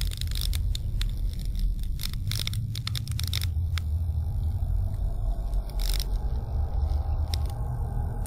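A deep steady rumble with irregular sharp crackling clicks over it; the crackles thin out about three and a half seconds in, when a faint higher hum joins the rumble.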